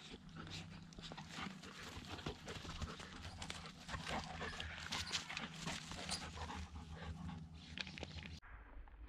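A Vizsla puppy and a goldendoodle play-wrestling on grass close to the microphone: a busy stream of scuffling paws, rustling and brushing fur with short clicks and knocks, and dog sounds mixed in. Near the end the sound cuts suddenly to a duller, quieter background.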